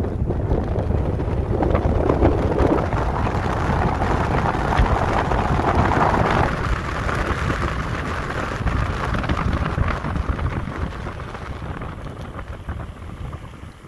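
Wind rushing and buffeting over the microphone, with road noise, while an electric motorcycle accelerates flat out in low mode. The noise builds for about six seconds, then eases and fades off near the end as the bike slows.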